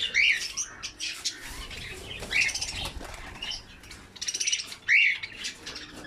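Mixed aviary flock of budgerigars with cockatiels and finches chirping and chattering. Clear up-and-down chirps come three times, about two and a half seconds apart, among buzzy, raspy chatter.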